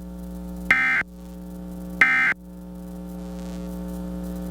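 Emergency Alert System end-of-message signal: two short, loud bursts of digital data tones, about a second and a half apart, after the spoken test message. Under them runs a steady low electrical hum.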